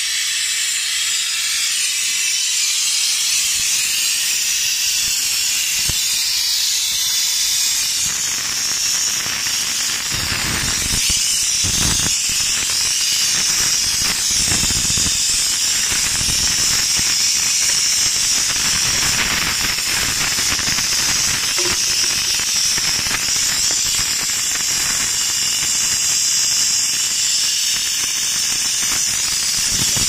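Gas hissing steadily out of an air-conditioner's refrigerant lines as they are flushed. Low rumbling joins the hiss about a third of the way in.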